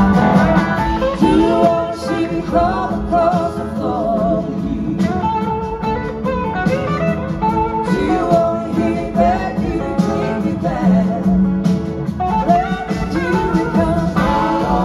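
Live rock band playing: an electric guitar lead with gliding, bending notes over drums, bass and keyboards.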